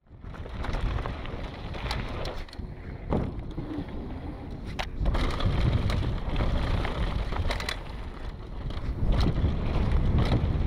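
Specialized Demo 8 downhill mountain bike rolling fast down a dirt and gravel trail: steady rumble of tyres over the loose surface and wind on the microphone, with frequent sharp knocks and rattles as the bike hits bumps.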